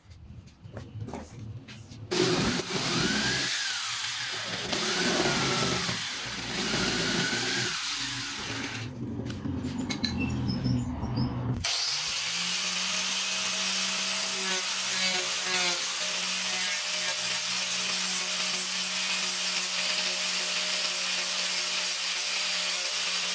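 Angle grinder with a sanding disc running steadily, a small piece of wood pressed against it for shaping. Before that, from about two seconds in, there is a loud, uneven rasping tool noise with wavering pitch. It switches abruptly to the steady motor drone about halfway through.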